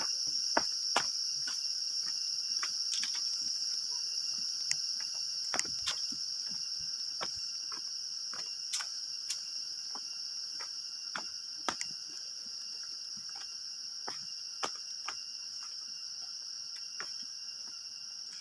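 Steady high-pitched drone of insects in the forest, with irregular sharp taps, about one a second, from footsteps going down the path.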